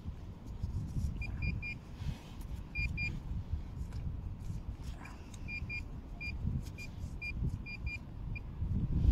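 Handheld metal-detecting pinpointer giving short high beeps, sometimes single and sometimes in quick runs of two or three, as its tip is pushed through wood-chip mulch. The beeping signals a metal target close to the tip. A low rustling rumble runs underneath.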